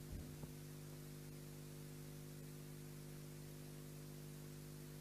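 Faint steady electrical hum and hiss from a microphone and sound system, with a couple of faint soft knocks right at the start.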